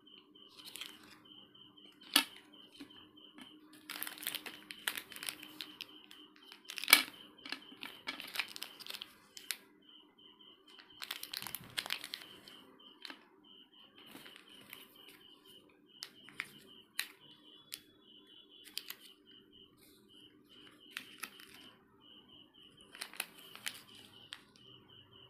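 Plastic candy wrappers and snack sachets crinkling and rustling as they are handled, in irregular bursts with a couple of sharp crackles.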